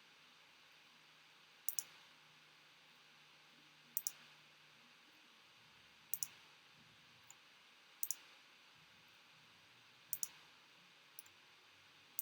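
Computer mouse clicks, each a quick double click of press and release, about every two seconds. The list is being re-randomised with each click.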